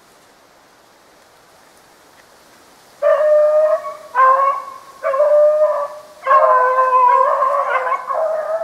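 Beagle baying: four or five long, drawn-out howls in close succession, starting about three seconds in, the last the longest. This is a hound giving tongue on the track of a snowshoe hare.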